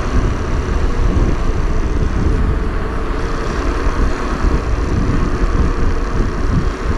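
Steady rush of wind on the microphone with a low rumble, as a mountain bike descends a rough paved lane at speed, tyres rolling on the tarmac.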